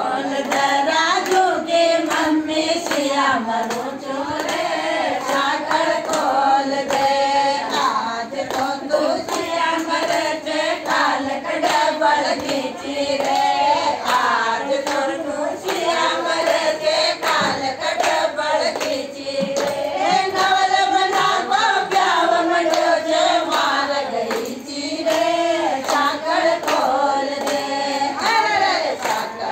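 A group of women singing a song together, with hand clapping keeping time throughout.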